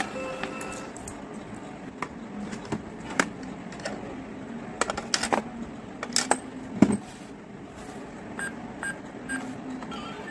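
Plastic clicks and knocks from a toy ATM piggy bank being handled. There is a scattering of sharp clicks, the loudest about seven seconds in, and a few short faint beeps near the end.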